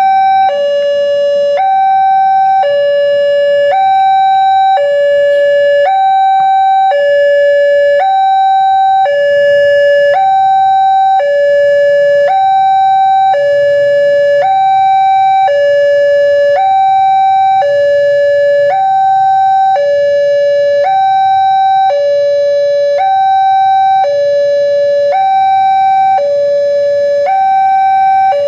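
Electronic warning siren of a railway level-crossing barrier sounding a loud, steady two-tone alternation, high then low, each tone about a second long. It is the alarm that a train is approaching and the crossing barrier is closing.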